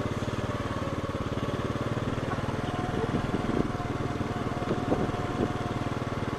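Small motorcycle engine running steadily, with an even rapid firing pulse, with some faint voices briefly in the middle.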